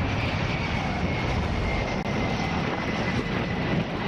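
Jet aircraft engines running, a steady rumble with a faint high whine that slowly falls in pitch.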